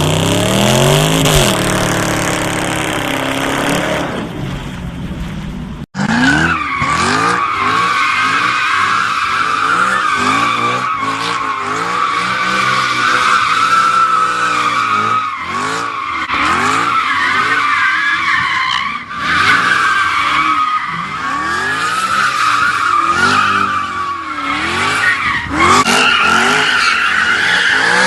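A car engine revving hard, then after an abrupt cut a long stretch of tyres squealing while the engine revs rise and fall over and over.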